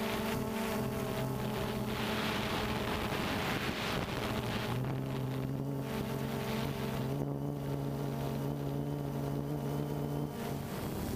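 DJI Phantom 2 quadcopter's motors and propellers humming steadily with several held tones, over wind rushing on the camera's microphone. The hum shifts in pitch about halfway through and breaks off shortly before the end.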